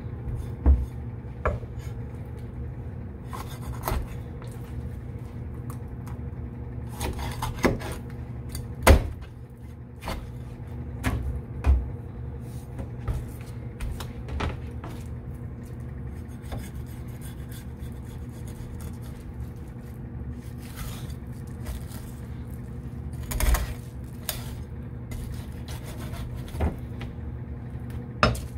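Kitchen knife scraping, rubbing and tapping against a fish and a cutting board as a humpback red snapper is cleaned and cut, with irregular taps and a few louder knocks. A steady low hum runs underneath.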